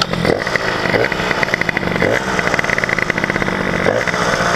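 A Peugeot moped's 70cc Metrakit two-stroke engine running just after starting, a check run to make sure the freshly set-up engine is healthy. Its revs rise and fall about every two seconds.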